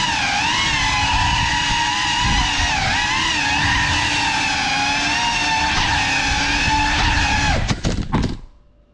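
A GEPRC CineLog35 cinewhoop's brushless motors and ducted propellers whining in flight, the whine rising and falling with throttle. Near the end there are a few sharp knocks as the drone strikes something, and the motors cut out abruptly.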